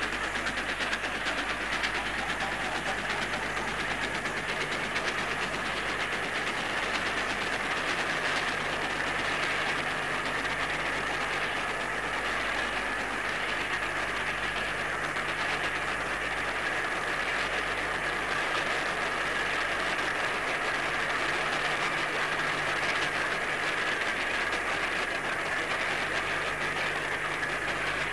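A train running, a steady noise that holds the same level throughout, over a low steady hum.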